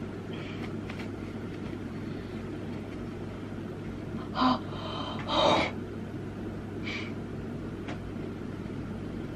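A girl gasps twice in pain, short and sharp, about four and a half and five and a half seconds in, over a steady low hum.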